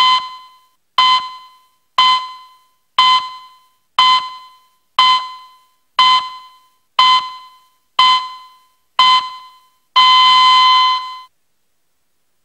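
Electronic countdown beeps: ten short beeps of the same pitch, one a second, each fading quickly, then one longer steady tone lasting about a second at zero, the signal for the submarine-launched ballistic missile to fire.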